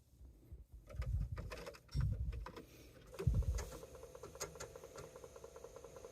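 A few dull thumps and sharp clicks of a TRS-80 Model 4 computer being handled, then from about three and a half seconds in a steady hum with fast, even ticking as the machine runs.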